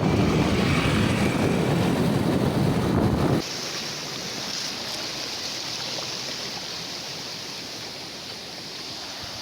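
Rushing water of a stream, an even hiss. For about the first three seconds it is louder with a heavy low rumble, then it cuts abruptly to a quieter, steady hiss.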